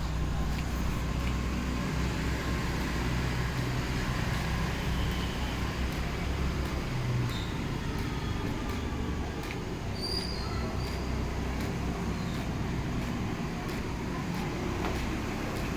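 Steady low rumble of background traffic noise, with a faint short high chirp about ten seconds in.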